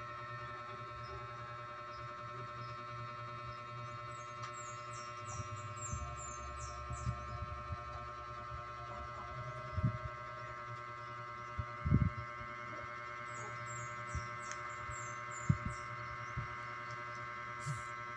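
A steady electrical hum with several steady tones in it. A small bird twitters in two short runs of quick high chirps, and a few soft low thumps come through, the loudest about two-thirds of the way in.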